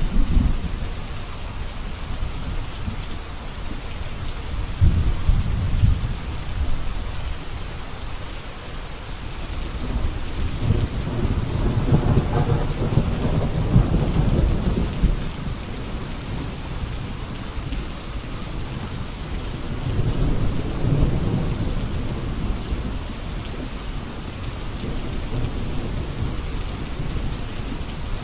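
Thunderstorm: steady rain with rolls of thunder, low rumbles swelling about five seconds in, a longer, louder roll around the middle, and another a few seconds later.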